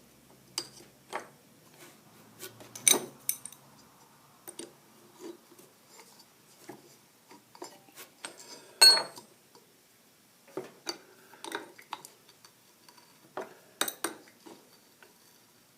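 Steel pieces of a pulley remover/installer kit clinking and knocking together as a smaller adapter is swapped in and fitted onto a power steering pump pulley. Scattered light clicks, with a louder ringing metal clank about nine seconds in.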